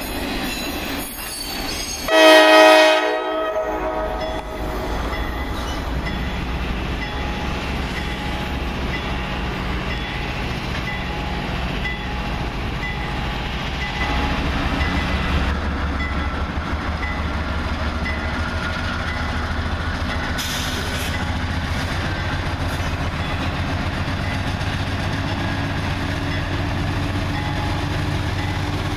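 Diesel freight locomotive's horn sounds one short, loud blast about two seconds in. Then the locomotives' diesel engines rumble steadily as they pull slowly past, growing louder about halfway through.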